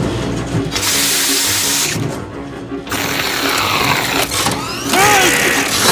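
Cartoon soundtrack: music with a loud rushing, hissing noise over it from about a second in, and a few short gliding tones near the end.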